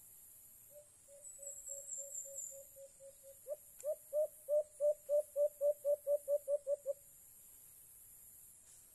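A dove calling: a soft run of low hooting notes, then a louder series of about a dozen upswept hoots that quickens and stops about seven seconds in.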